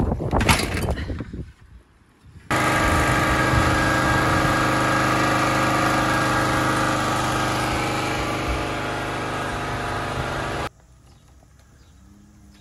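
After a couple of seconds of rustling noise, a portable generator runs at a steady speed for about eight seconds, then cuts off suddenly.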